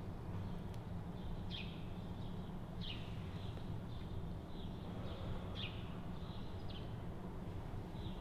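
A small bird chirping: short falling chirps repeated every second or so, over a steady low background rumble.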